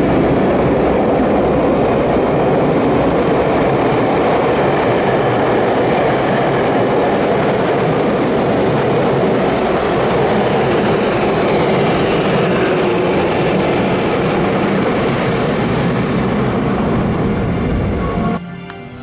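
Electric commuter train running by on the line: a loud, steady rush of wheels on rail, with a faint high whine falling in pitch partway through. The train sound cuts off near the end and music begins.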